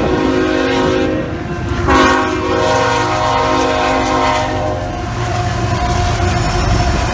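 Freight locomotive's multi-chime air horn blowing for a level crossing: a blast that ends a little under two seconds in, then a longer, louder one that stops about five seconds in. After the horn, the locomotive's diesel engine runs steadily as it rolls through the crossing.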